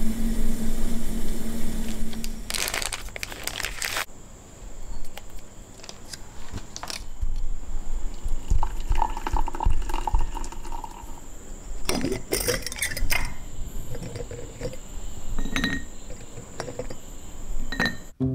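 Tea being made: clinks and knocks of a metal gooseneck kettle and ceramic crockery, and hot water poured from the kettle into a mug near the middle.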